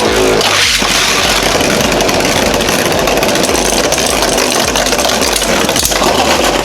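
Two Beyblade spinning tops, a 3D-printed JYNX Ouroboros and a Union Spriggan with metal swords, spinning and clashing in a plastic stadium: a steady, loud grinding rattle with scattered knocks of contact, and a sharper knock about six seconds in that fits the knockout that ends the round.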